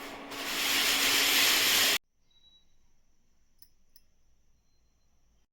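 A loud, steady hiss that swells up within the first half second, then cuts off abruptly about two seconds in. Near silence follows, with a faint high steady tone and two soft clicks.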